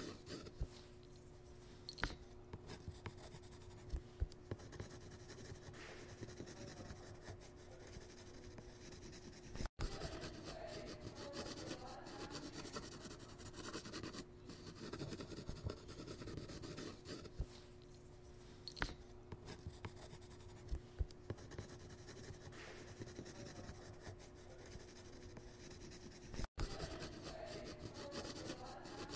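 Faint scratching and rubbing of a stylus drawing on a surface, with scattered light taps, over a steady low hum; the sound cuts out for an instant twice.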